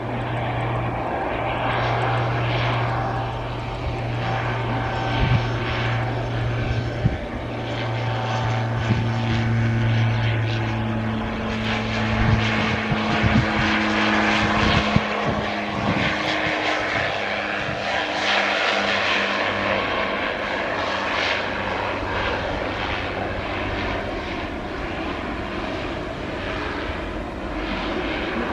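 Twin-turboprop military aircraft landing: a steady low propeller drone on approach, changing pitch around touchdown about halfway through, with a few sharp knocks, then the engines running on through the roll-out.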